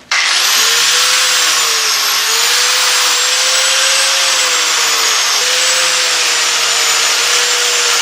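A power-tool wire wheel starts up and runs steadily, its motor whine wavering slightly as the wheel scrubs corrosion off steel wiper linkage parts, with a brief dip about two-thirds of the way in.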